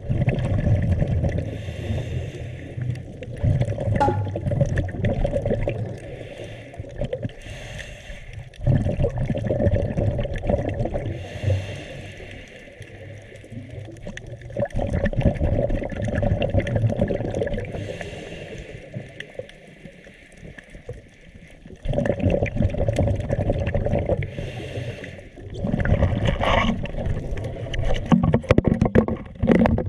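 Scuba diver breathing through a regulator underwater: long bubbling exhales alternate with short hissing inhales, about five breaths.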